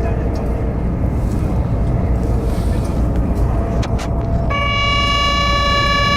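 Steady rumbling noise like a running vehicle; about four and a half seconds in, a steady pitched tone like a horn starts and holds.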